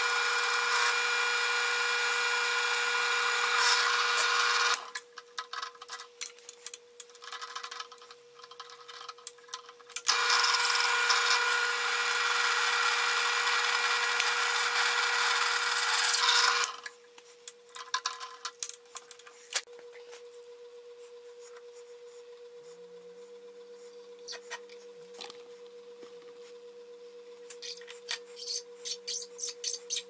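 Drill press motor running with a steady hum while the bit cuts into a metal pipe plug clamped in a vise, in two loud bouts. The first, with a centre drill to start the hole, lasts about five seconds. The second, with a twist drill, begins about ten seconds in and lasts about six seconds. Between and after the bouts the motor keeps humming under scattered light clicks and knocks.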